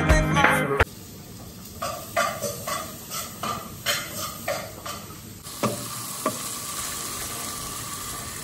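Background music that cuts off under a second in. Then a plastic spatula scrapes and stirs onions, garlic and a scotch bonnet pepper frying in oil in a pan, in quick strokes about two or three a second. From about halfway the frying settles into a steady sizzle with a couple of knocks of the spatula on the pan.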